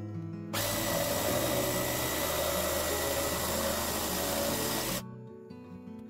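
WORX Axis jigsaw cutting through the wooden top of a box, starting about half a second in, running steadily for about four and a half seconds and stopping abruptly.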